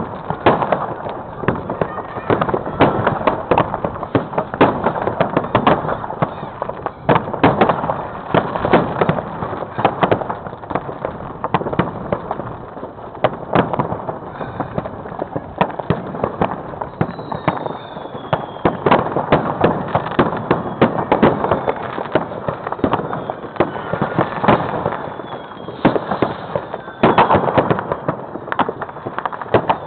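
Dense fireworks and firecrackers going off: many bangs, pops and crackles overlapping in rapid succession, with a few high, slightly falling whistles in the second half.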